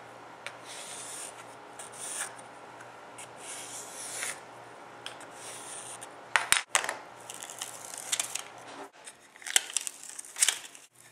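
Hand-work on a bench: a pencil scraping and rubbing around a metal lathe faceplate set on a wooden disc, with a few sharp knocks as the faceplate is shifted. Near the end, short tearing sounds as tape is peeled and pressed onto the wood.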